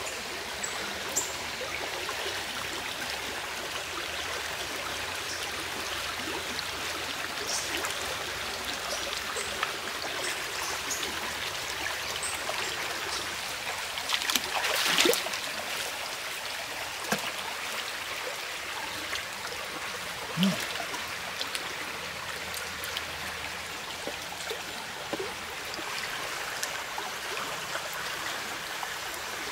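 Shallow stream water running steadily, with small trickles and clicks of water being stirred. A louder, brief splash comes about halfway through as a dip net is worked along the bank.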